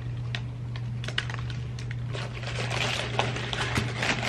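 Close-up chewing of a big, thick cookie, with small irregular crackles and clicks from the mouth and the paper wrapper in hand. A steady low hum runs underneath.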